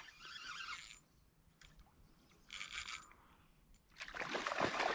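A hooked trout splashing and thrashing at the water's surface in three short bursts, the last one longer and louder near the end.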